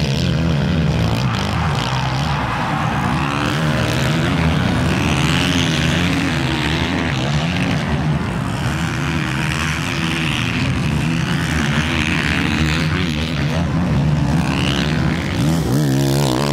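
Several four-stroke 450 motocross bikes racing on a dirt track, their engines overlapping in a steady, loud mix. The pitch keeps rising and falling as the riders rev and back off through jumps and turns.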